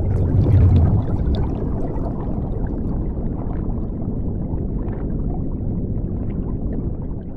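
Underwater ambience of rushing, gurgling bubbles: a deep churning rush with small scattered pops, loudest about half a second in, then steady, beginning to fade near the end.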